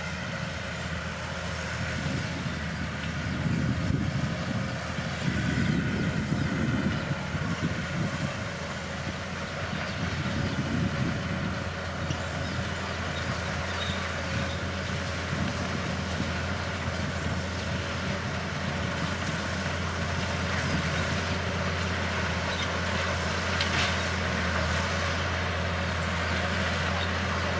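Bulldozer's diesel engine running steadily, with louder, rougher stretches during the first ten seconds or so.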